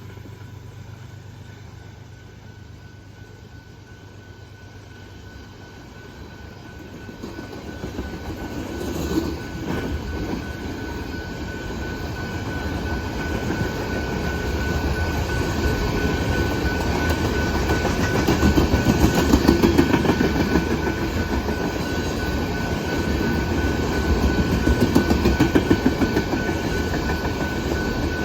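Canadian Pacific manifest freight train rolling past: the rumble of wheels on rail swells from about six seconds in as the cars come close, with a rhythmic clatter of wheel sets and a thin steady high tone over it.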